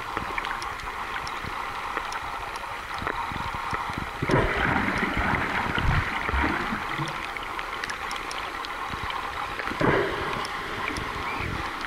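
Underwater sound picked up by a submerged camera: a steady rush of moving water with scattered faint clicks, and louder gurgling rushes about four seconds in and again near ten seconds.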